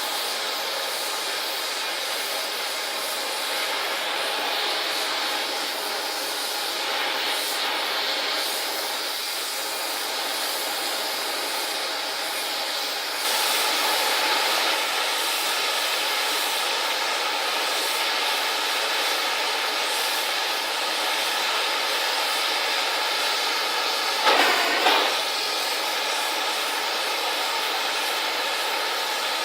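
Gas cutting torch flame hissing steadily while heating a bent steel vise bar for straightening. It gets louder about 13 seconds in, and there is a brief louder crackle around 24 seconds.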